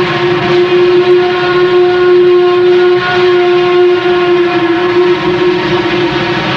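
Steam locomotive whistle held in one long, steady blast over the noise of working steam.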